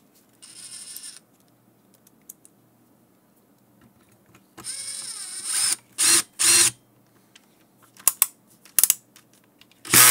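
Hand screwdriver driving small screws into the standoffs of a golf-cart motor controller's circuit-board stack: short metal scrapes and clicks of the tool and screws. There is a longer rasp about halfway through, followed by two short loud ones and a few clicks, with two more loud rasps near the end.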